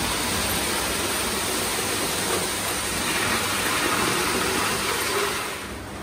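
Postwar Lionel O gauge NW2 switcher model running on three-rail tinplate track: a steady rolling rumble of wheels and motor, which falls off sharply about five and a half seconds in.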